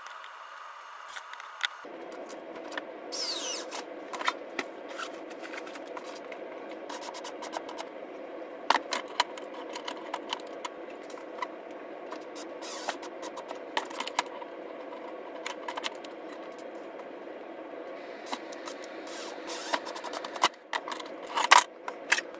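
Clicks and scrapes of screws and plastic chuck parts being handled, and a cordless impact driver driving screws into a 3D-printed lathe chuck clamped in a vise, over a steady hum that starts about two seconds in.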